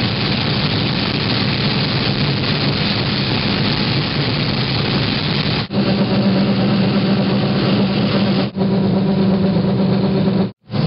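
Combine harvester running in a corn field: loud, steady engine and machinery noise with a steady low hum. The sound drops out abruptly a little past halfway, again about two and a half seconds later, and near the end.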